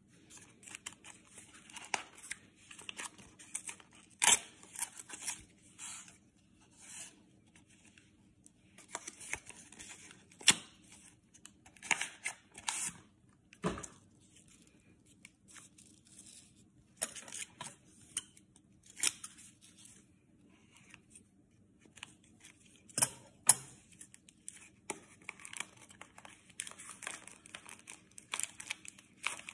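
Trading-card packaging being handled and torn open by hand: irregular rustling, crinkling and tearing of paper and wrapper, broken by sharp clicks and snaps, the loudest about three quarters of the way through.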